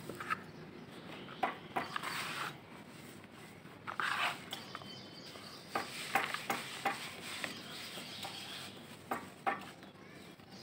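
Dry mud and dirt lumps crumbled by hand over a bucket of dry dirt: scattered crisp crackles and crunches, the loudest about four seconds in, with bits of dirt trickling back into the bucket.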